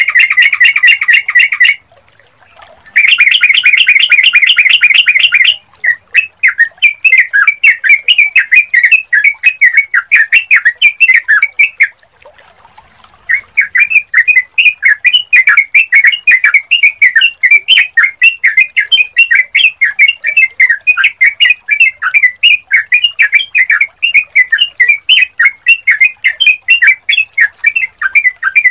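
Yellow-vented bulbul calling loudly. Two dense, rapid chattering bursts are followed by long runs of quick chirping notes, broken by short pauses about 2 s and 12 s in.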